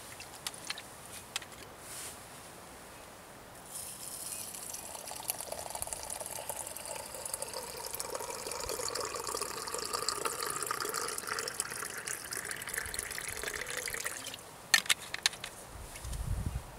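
Water poured from above into an enamel teapot over loose tea leaves, a steady splashing pour of about ten seconds whose tone rises slightly as the pot fills. A few sharp clicks follow right after the pour stops.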